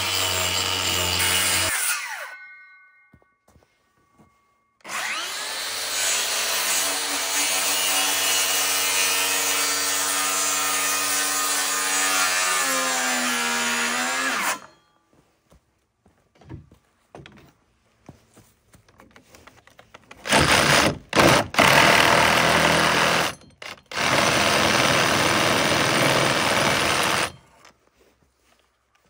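Power tool working wood in several runs. The longest lasts about ten seconds, and the motor's pitch falls as it spins down after it. Short bursts follow, then a steady run of about three seconds near the end.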